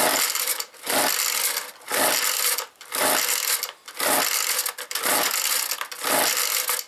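Husqvarna 125R brushcutter's two-stroke engine being pull-started: seven quick yanks of the recoil starter cord, about one a second, each a short rasping whirr of the engine turning over without firing. It is a hard start on the first attempt after a carburettor cleaning.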